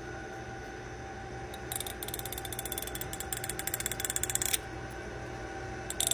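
Fingernail drawn along the teeth of a comb, a rapid run of fine ratchet-like clicks: the comb sound said to make cats gag. It runs from about two seconds in to four and a half seconds, then starts again at the very end.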